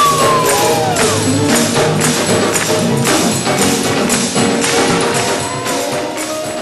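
A gospel band plays live, with sustained instrumental notes over sharp percussion hits that keep a steady beat. The music begins to fade near the end, as the song closes.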